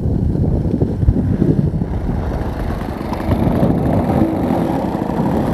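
Gusty wind buffeting the microphone over the running glow engine of an RC biplane in flight.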